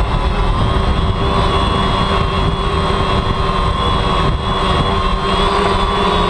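DJI Phantom quadcopter's electric motors and propellers whining steadily in flight, heard close up from the camera mounted on the drone, over a low rumble.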